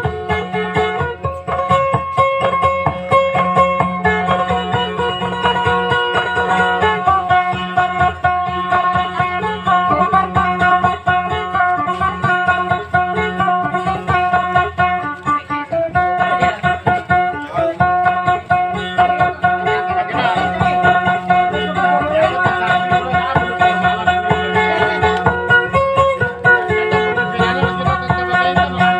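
Acoustic guitar played throughout, a plucked melody of changing notes over a steady low tone, accompanying a dayunday song.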